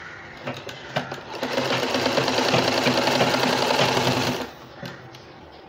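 Domestic sewing machine stitching lace onto cotton fabric in one run of about three seconds, a fast even stitching rhythm that stops abruptly. A few sharp clicks come before it, in the first second and a half.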